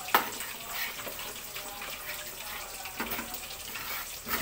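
Coconut milk simmering in a metal pan on a gas stove while a metal ladle stirs it, knocking against the pan just after the start, about three seconds in and near the end. The sauce is being cooked down until the oil starts to separate out.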